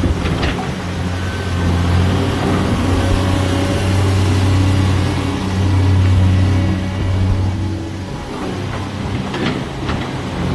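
Caterpillar 336D L excavator's six-cylinder diesel engine running with a steady low drone, swelling a little in level twice. A few faint clicks come near the end.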